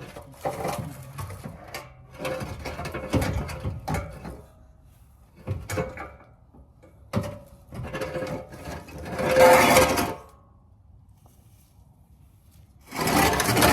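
Steel exhaust pipe scraping and clanking against the car's underside as it is wrestled out, in irregular bursts. The loudest scrapes come about nine seconds in and near the end.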